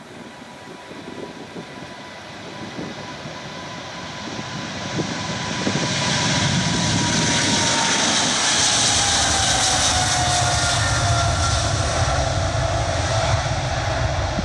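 Boeing 777-300's twin GE90 jet engines at takeoff thrust during the takeoff roll, growing louder as the aircraft approaches. The engines' whine holds, then drops in pitch as the jet passes, while a deep rumble builds near the end as it rotates.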